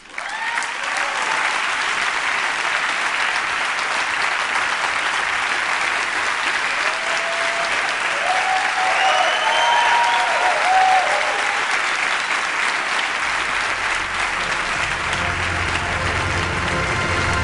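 Large auditorium audience applauding steadily, with a few voices calling out about halfway through. Low music fades in under the clapping near the end.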